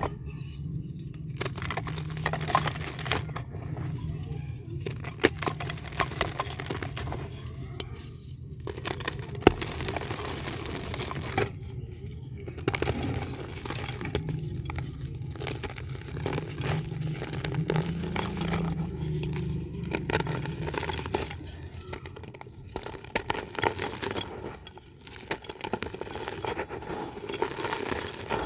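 White dirt crumbling: a dense, irregular run of small crackles and snaps, over a low steady hum.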